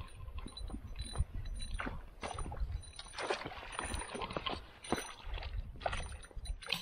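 A hooked northern pike thrashing and splashing at the surface close to shore in a series of irregular splashes, over a low rumble of wind on the microphone.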